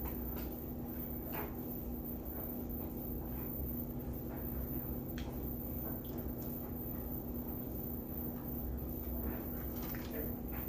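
Faint eating sounds, a few soft clicks and smacks a few seconds apart, over a steady low hum.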